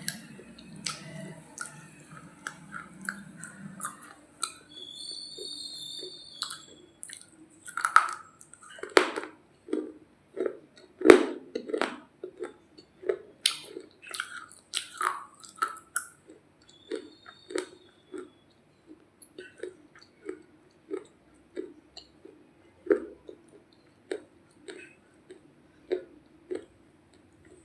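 Close-up chewing and crunching of a very hard roti: sharp, loud bites in the middle, then a steady rhythm of about one to two crunchy chews a second.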